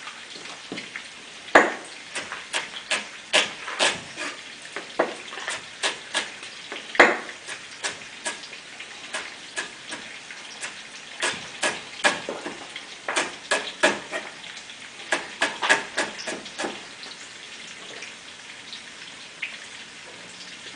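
Sausage sizzling in a frying pan while a utensil stirs and breaks it up, with many sharp clicks and scrapes against the pan. The clatter stops about three-quarters of the way through, leaving the steady sizzle.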